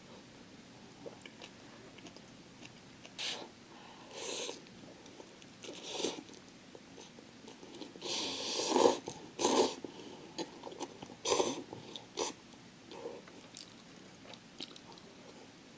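A person eating noodles: a series of short slurps and chews, with one longer, louder slurp of noodles about eight seconds in.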